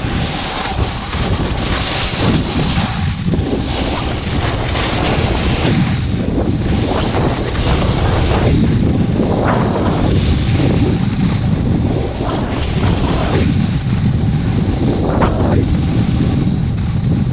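Wind rushing over an action camera's microphone during a descent down a ski slope, with the hiss of snow sliding underfoot. The noise surges about once a second.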